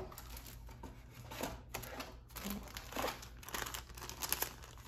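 Thin glassine paper envelopes crinkling and rustling as they are lifted from a cardboard box and handled, with sharper crinkles in the second half.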